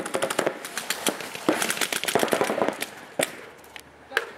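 Paintball markers firing, in quick strings of rapid shots that thin out to a few single shots near the end.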